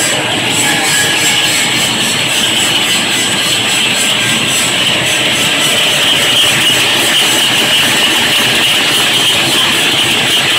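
Chocolate-filled snack extrusion line running, with the extruder and the core-filling roller cutter going together: a steady, loud mechanical din with a thin high whine over it.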